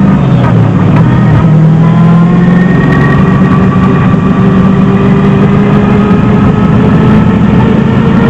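327 cubic-inch small-block Chevy V8 in a 1971 Datsun 240Z, heard inside the cabin, pulling hard under acceleration. Its note rises steadily in pitch as the car picks up speed onto a straight.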